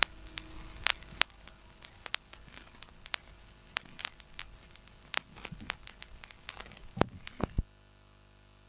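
Turntable stylus riding the lead-out groove of a 7-inch vinyl single after the song has ended: faint surface hiss with irregular crackles and pops. Two louder thumps come about seven seconds in, then the crackle stops, leaving only a faint steady hum.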